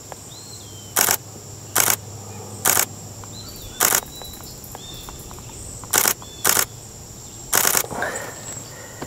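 Camera shutter firing single frames: seven sharp clicks at uneven intervals, taking photos of a green heron. Faint bird chirps and a steady high insect drone sit underneath.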